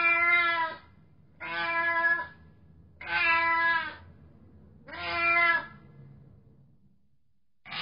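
Domestic cat meowing repeatedly: four level-pitched meows, each under a second long, at intervals of about a second and a half, with another beginning at the very end.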